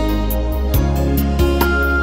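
Instrumental karaoke backing track of a Minang pop song, with no vocal line: a steady bass, held chords and a light ticking beat about four times a second.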